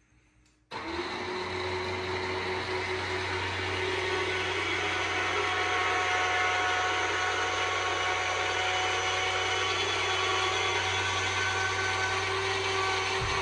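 Electric drive of a Saxdor 320 GTO's fold-down side panel running as the side lowers: a steady motor whine with a low hum that starts suddenly about a second in and keeps an even pitch.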